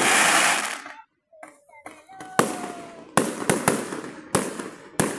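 Fireworks going off: a dense, loud crackling burst, a brief lull about a second in, then a run of sharp bangs each trailing off in an echo, roughly one every half second to second.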